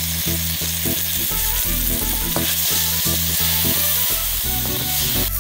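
Chopped raw green tomatoes and green chillies sizzling in hot oil in an iron pan, stirred and scraped with a perforated spatula. A low rhythmic background beat runs underneath.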